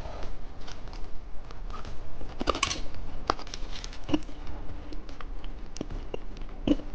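Irregular small clicks, taps and brief crinkles of plastic candy packaging and containers being handled.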